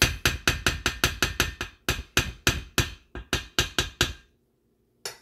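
Spatula knocking against the side of a stainless steel mixing bowl in quick, even strokes, about six a second, as thick cake batter is stirred. The strokes stop about four seconds in, and one last knock comes near the end.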